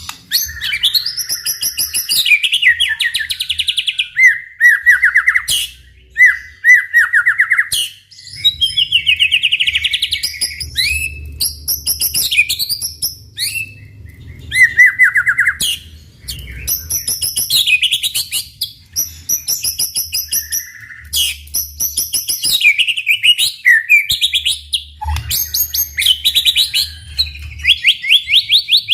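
White-rumped shama (murai batu) singing energetically without pause: a quick string of varied whistled phrases, fast trills and chattering notes, with short breaks between phrases.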